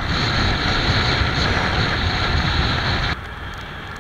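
Wind buffeting the microphone, mixed with road and engine noise from a two-wheeler riding at speed. About three seconds in it cuts off suddenly to much quieter riding noise.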